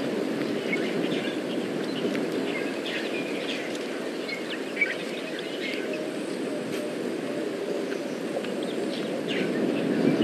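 Wild birds chirping and calling in short scattered notes over a steady rushing background noise, with one brief sharp click about five seconds in.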